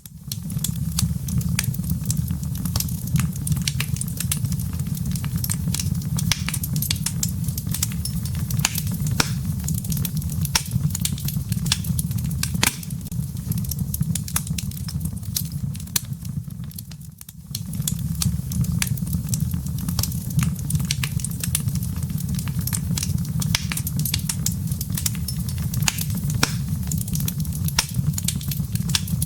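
Wood fire burning in a fireplace: dense, irregular crackles and pops over a steady low rumble of the flames. The fire goes briefly quieter a little past the middle, then picks up again.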